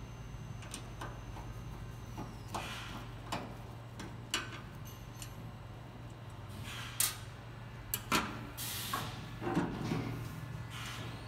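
Scattered clicks, knocks and scrapes of the display panel being worked loose from the paper cutter's sheet-metal housing by gloved hands, with two sharper knocks after about seven and eight seconds and some rustling near the end. A steady low hum runs underneath.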